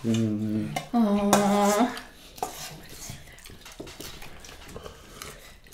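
A metal serving spoon clinking and scraping in a stainless steel pan, with scattered light clicks of tableware. Two short vocal sounds come in the first two seconds.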